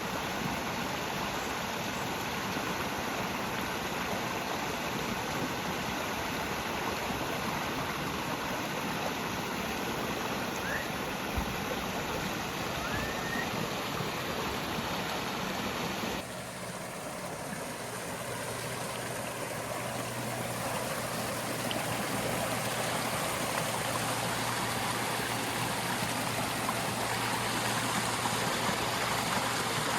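Running water rushing steadily. The sound shifts abruptly a little past halfway, with a faint low hum after that.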